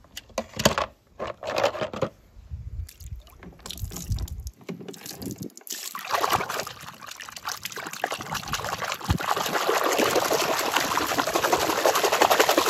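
A few sharp clicks and knocks, then water pouring in a steady stream that builds in loudness from about six seconds in and stays loud to the end.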